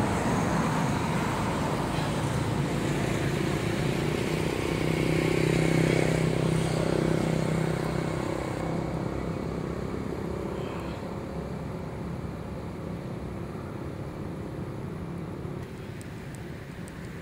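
Road traffic: a motor vehicle's engine hum that grows louder about six seconds in as it passes, then fades away.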